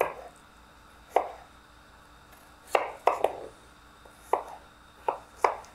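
Kitchen knife chopping a carrot into chunks on a wooden cutting board: about eight sharp knocks of the blade onto the board, spaced unevenly.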